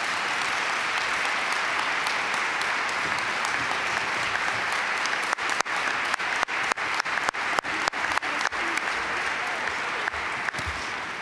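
Audience applauding steadily, dying away near the end. In the middle the sound cuts out for an instant again and again.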